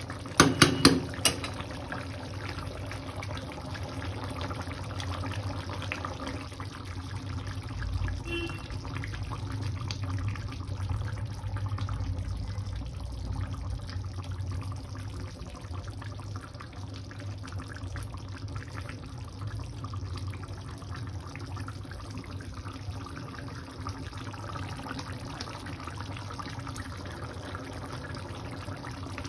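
Chicken curry gravy simmering and bubbling in a steel pan on a gas stove, with several sharp clanks of a metal spatula against the pan in the first second or so.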